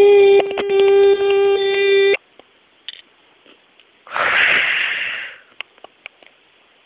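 A child's voice holding one long steady note that cuts off about two seconds in, then a breathy hiss lasting about a second and a half.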